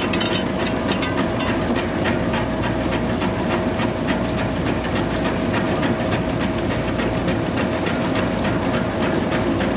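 Brush-roller peeling and washing machine running with a load of cassava roots under a water spray: a steady motor and roller hum with a constant tone, and a continual clatter of roots knocking against the rollers and each other.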